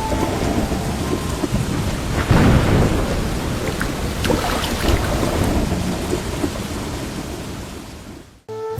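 Heavy rain falling with thunder, a loud low rumble about two seconds in, and scattered sharp drop ticks. The storm sound cuts off abruptly near the end.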